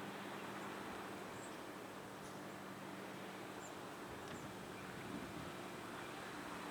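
Quiet outdoor ambience: an even hiss over a steady low hum, with faint, short, high chirps scattered through it.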